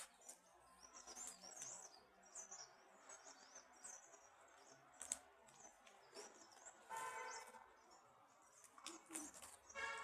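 Small birds chirping and twittering faintly in many short, high calls.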